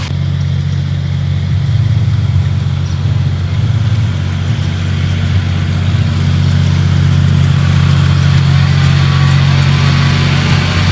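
A motor running steadily, a loud low hum that holds the same pitch throughout.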